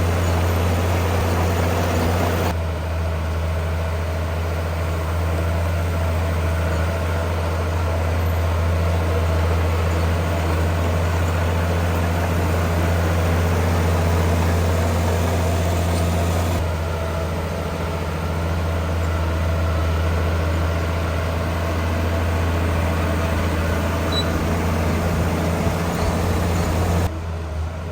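Heavy diesel engine of earth-moving machinery running steadily with a low hum. The sound shifts abruptly three times, about 2.5, 16.5 and 27 seconds in.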